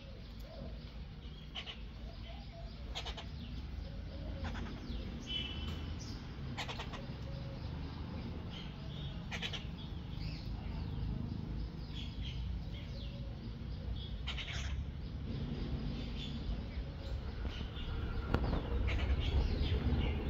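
Short, sharp animal or bird calls repeating every second or so, with a few high chirps, over a steady low rumble.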